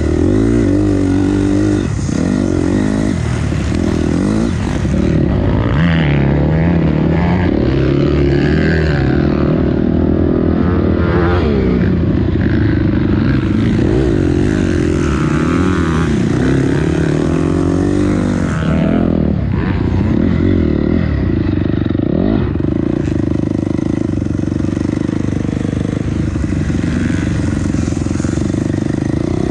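Dirt bike engine revving up and falling back again and again as it is ridden around a motocross track, heard up close from a camera mounted on the bike.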